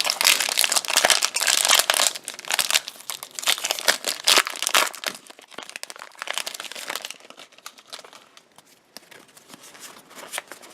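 Crinkling and tearing of a Pokemon trading-card booster pack's foil wrapper as it is ripped open. The dense, rapid crackling thins to fainter rustling after about seven seconds.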